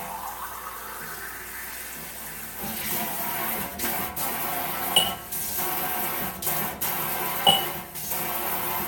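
Water noise, a steady rushing and splashing that swells about two and a half seconds in, with a sharp clink twice in the second half, about two and a half seconds apart.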